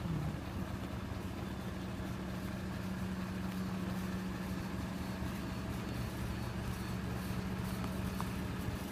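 A crane truck's diesel engine idling steadily, a constant low hum with no revving.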